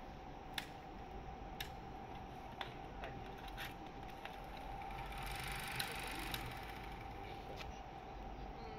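Portable film projector's mechanism running faintly: a steady hum with sharp clicks about once a second, and a brief rise in mechanical noise about midway through.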